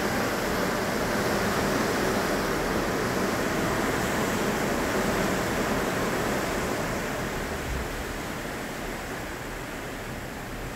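Steady rush of wind and sea water passing a ship, easing a little near the end.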